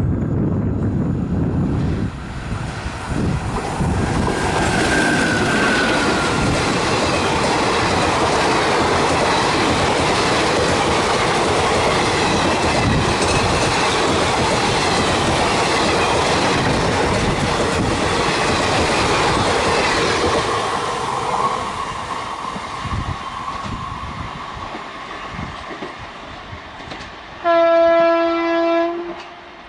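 Passenger train hauled by a WCAM3 electric locomotive passing at speed: a steady rush and clatter of wheels and coaches on the track for about twenty seconds, then fading as the train moves away. Near the end a loud single-note horn blast lasts about a second and a half.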